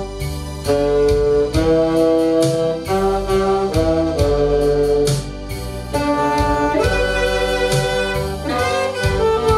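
Saxophones playing a slow hymn melody in held notes over a backing track with a bass line and a steady beat.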